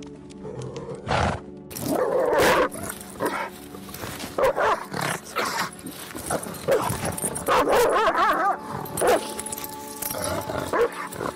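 Several corgis barking and yapping in play, a string of short calls over steady background music.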